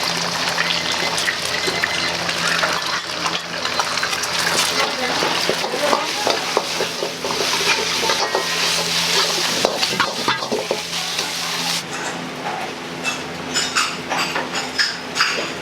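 Food frying and sizzling in a wok while a metal ladle stirs and clanks against it, over a steady low hum. The sizzle drops away about three-quarters of the way through, leaving scattered ladle-on-wok clanks.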